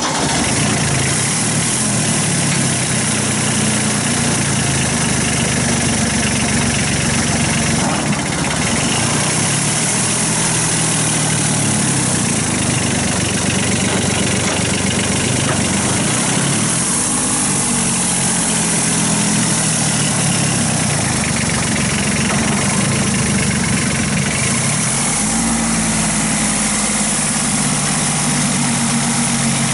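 Kubota B8200 tractor's three-cylinder diesel engine running just after starting, its pitch shifting several times as the tractor is driven and the front loader is raised.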